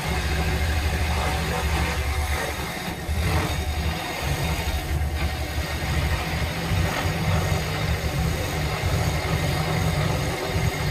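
Woodstar SD 16 scroll saw running, its reciprocating blade cutting through a wooden board: a steady low buzz.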